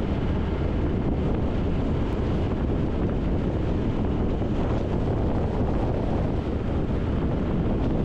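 Steady wind roar over the microphone of a Triumph Tiger 1200 motorcycle cruising at motorway speed, mixed with road and vehicle noise.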